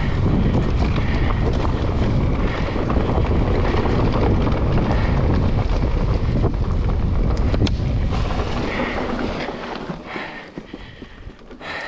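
Wind rushing over the microphone with tyre roar from a Decathlon Stilus mountain bike descending a dirt forest trail, and occasional clicks and knocks from the bike. The rush dies down about ten seconds in as the bike slows.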